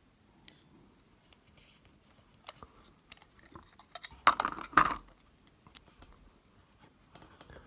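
Small hard plastic and electronic parts of a broken-open WOO 3.0 sensor being handled by hand: scattered light clicks and taps, with a louder burst of rattling clicks about four to five seconds in.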